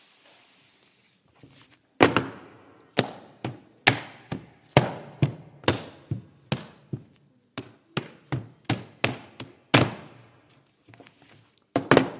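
Sharp slaps and thunks of hands on hardcover atlas books and of the books on a table, played as group percussion. The hits come at about two a second, starting about two seconds in, with a quick flurry of knocks near the end.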